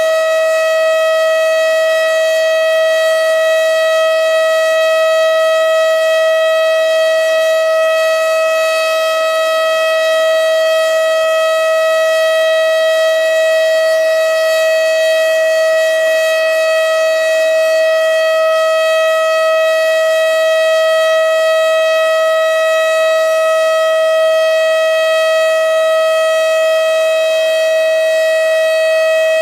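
Federal Signal STH-10B outdoor warning siren sounding its Alert signal: one loud, steady tone held at a constant pitch, with no rise or fall.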